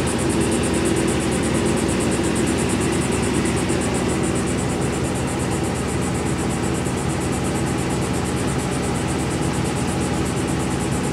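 SUV engine idling with a steady, even hum.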